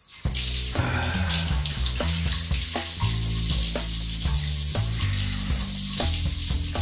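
Water running steadily from a bathroom sink tap, starting suddenly just after the start, with background music and a stepping bass line underneath.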